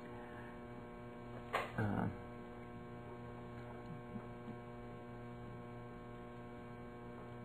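Steady electrical mains hum with a row of evenly spaced overtones, and one brief noise about two seconds in.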